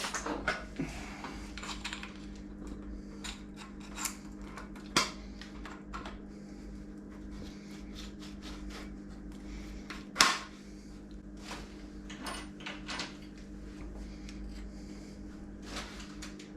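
Scattered clicks, clinks and light knocks of tools and bicycle parts being handled during a dirt-jump bike build, over a steady low hum. Two sharper knocks stand out, about five and ten seconds in.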